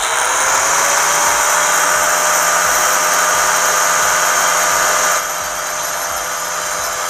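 Handheld angle grinder with a diamond disc cutting a shallow channel into a wall for wiring. Its steady whine over harsh grinding noise rises to full speed in the first second. The sound drops a little about five seconds in.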